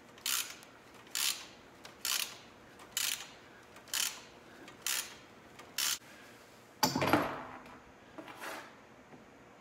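Hand ratchet tightening a crash-bar mounting bolt: a short burst of ratchet clicks on each swing, about once a second, seven times over. About seven seconds in comes a louder rustle and bump.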